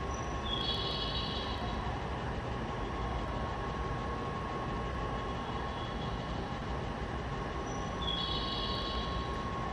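A 521 series electric train standing at a platform with its doors open, its onboard equipment humming steadily with a constant mid-pitched tone. Brief high beeping tones sound about half a second in and again near the end.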